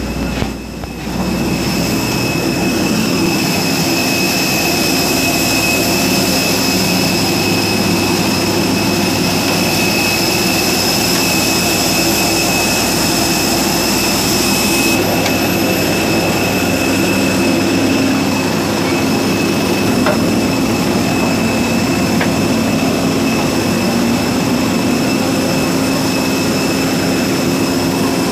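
Steady high-pitched jet whine and rumble on an airport apron, heard from inside an airport shuttle bus. The bus's own running shifts slightly about halfway through.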